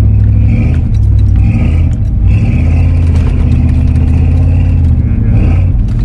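Pickup truck engine running steadily while driving slowly on a dirt track, heard from inside the cab as a loud low drone. The drone dips briefly about two seconds in and again near the end.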